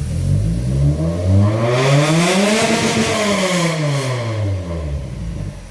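An engine revving up steadily for about three seconds and then falling back down, with a rush of noise at the peak of the rev.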